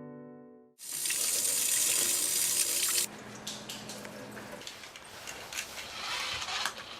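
Water from a tap running into a sink, loud and full for about two seconds, then quieter for the rest with small splashes and knocks.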